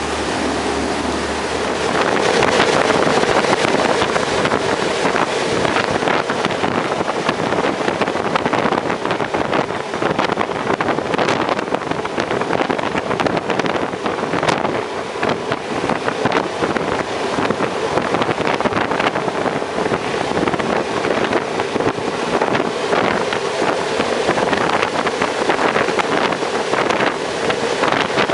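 RIB speedboat running fast across open water: a steady engine drone under heavy wind buffeting on the microphone and the rush of water against the hull. It gets louder about two seconds in.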